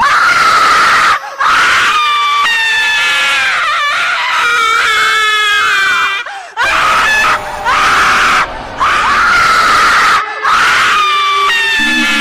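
A string of long, shrill, wavering screams, a horror sound effect of a ghostly shriek, broken by a few short breaks.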